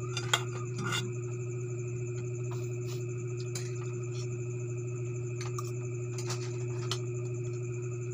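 Spoons and forks clinking and scraping against plates during a meal, a few short sharp clicks, the loudest just after the start. Under them runs a steady low hum with steady high tones.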